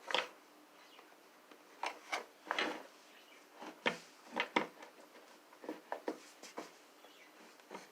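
Irregular knocks, taps and short scrapes of the old bird feeder's pieces being handled and fitted together, about a dozen in all, with the loudest knock right at the start.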